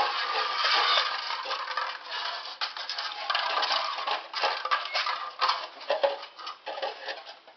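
Red plastic Solo cups and an aluminium drink can being knocked about by Airedale terrier puppies, a dense, continuous run of light knocks, rattles and clatter.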